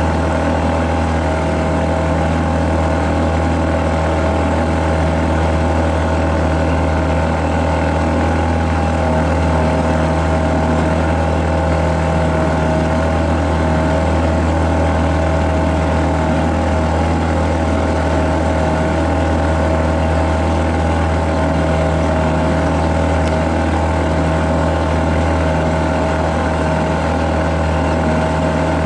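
Boat engine running steadily under way, a constant low drone with a steady higher hum over it and no change in speed.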